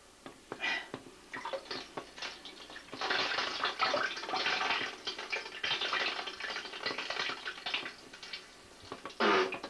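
Water splashing and running: a few short splashes, then a steady run of water for about five seconds starting about three seconds in. Near the end there is a short, louder low sound that falls in pitch.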